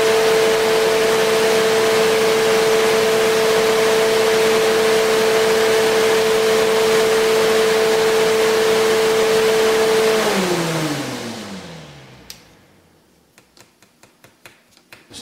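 Duct Blaster duct-testing fan running at a steady speed, depressurizing the ductwork for a leakage test, with a steady hum. About ten seconds in it is switched off and winds down, its pitch falling as it slows. A few faint clicks follow near the end.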